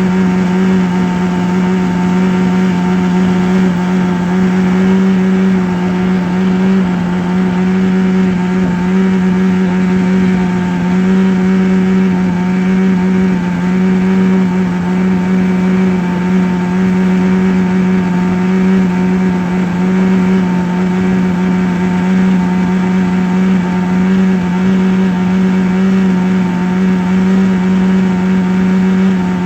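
A steady, loud droning hum: one low tone with overtones above it, unchanging in pitch and level throughout.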